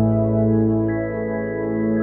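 Ambient background music of long held chords, with a higher note coming in about a second in.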